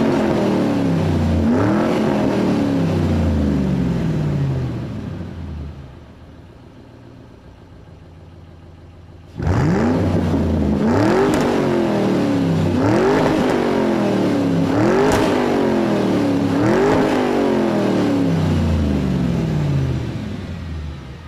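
Car engine revving again and again, each rev climbing quickly and then dying away slowly. The revving fades out about five seconds in, starts again suddenly after a quieter stretch of about four seconds, and fades near the end.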